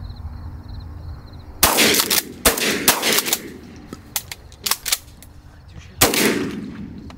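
Shotguns fired at a passing group of doves: a close pair of loud blasts about one and a half to two and a half seconds in, then another loud blast about six seconds in, each with a short echoing tail, and several sharper, lighter cracks in between.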